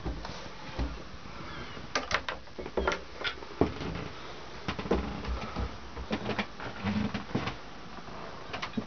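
Irregular knocks, taps and low thumps of someone moving about inside a small wooden yacht cabin with a handheld camera, with footsteps and bumps against the woodwork, over a steady background hiss.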